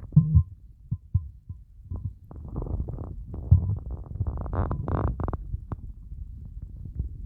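Empty stomach growling and gurgling after a fast of over 24 hours. A sharp knock comes right at the start over low pulsing, then a long bubbling growl builds about two seconds in, rises to squeaky higher notes past the middle, and settles back into a low rumble.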